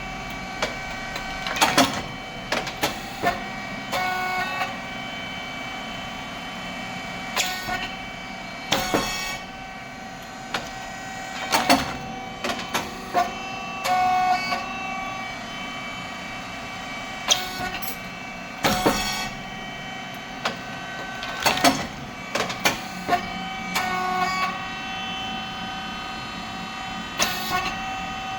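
Rice cake puffing machine running its production cycle: sharp pops and clacks every few seconds, often two or three close together, as the heated moulds open and puff the rice chips, over a steady hum from the running machine.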